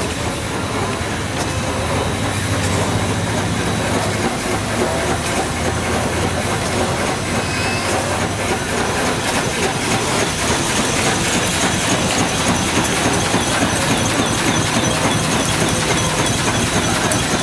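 Stationary steam engines running: a steady mechanical clatter with rapid clicking and steam noise, a little louder from about ten seconds in.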